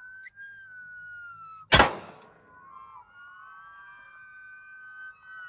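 Emergency sirens wailing in slow pitch glides, with a single loud gunshot about two seconds in. After the shot, several sirens sound together.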